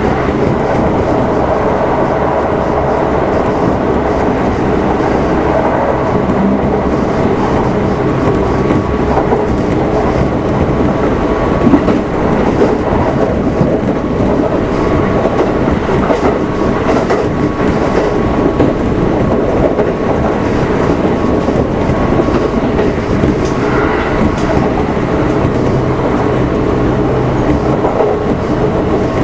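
Kintetsu 1259 series electric train running at a steady speed, heard from motor car Mo 1268: a continuous drone of wheels on rail with a steady whine from the motor and gearing. There is one sharp louder knock about twelve seconds in.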